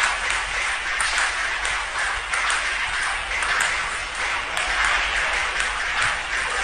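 Table tennis ball being hit back and forth, sharp clicks about once a second over a steady hiss.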